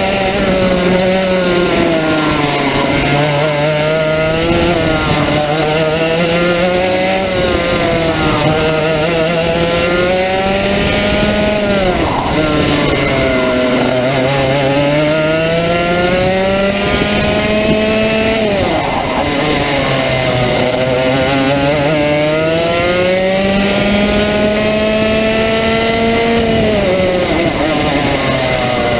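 Rotax Max 125 cc two-stroke kart engine at race pace, heard onboard: its revs climb steadily along the straights and drop sharply off the throttle into the corners, several times over.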